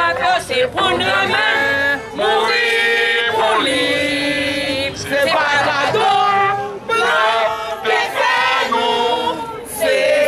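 A crowd of men and women singing together in unison, in phrases of long held notes.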